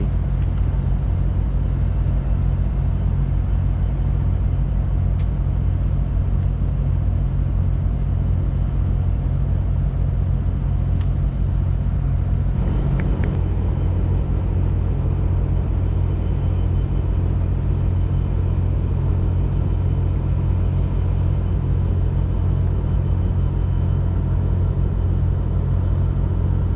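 Steady low rumble of an idling vehicle engine, even throughout, with one brief click about halfway through.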